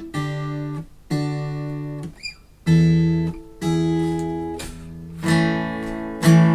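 Music: acoustic guitar strumming chords, each chord struck and left to ring for about a second before the next.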